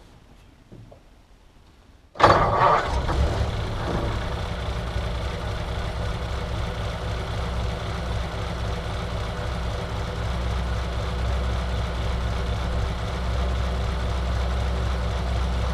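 1951 Mercury's flathead V8 engine catching and firing up about two seconds in on a cold start after nearly a year unused, then settling into a steady, smooth, very low idle.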